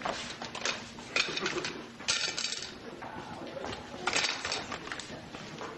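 Plates and cutlery clinking and clattering as food is served from a buffet, in a run of short knocks and clinks.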